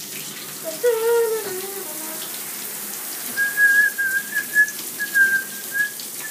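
Bathtub tap running into the tub. About a second in there is a short sliding call. Over the last three seconds comes a high, thin tone in short broken pieces, louder than the water.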